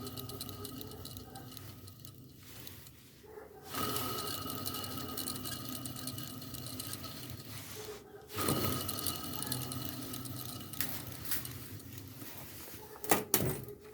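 Iveco Daily engine running, with a steady high whistle over the engine hum, heard in several short stretches that cut off sharply; the whistle comes from a failing alternator whose rear bearing has broken up.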